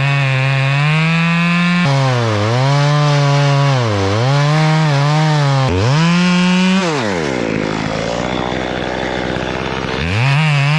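A small chainsaw cuts through wood, finishing off a partly made cut. Its engine runs at high revs and dips again and again as the chain bites. About seven seconds in the revs fall away for about three seconds, then climb back to full speed near the end.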